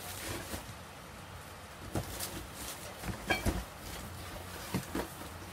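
Cardboard shipping box being handled and pried open by hand: a few scattered knocks, scrapes and a brief squeak of cardboard, loudest a little past the middle, over a steady hiss.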